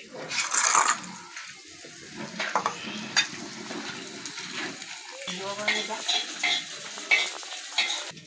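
Chopped onion sizzling in an iron wok over a wood fire, with a metal spatula scraping and knocking against the pan as it is stirred. A loud rush of sizzle comes about half a second in, and the short scrapes repeat several times in the second half.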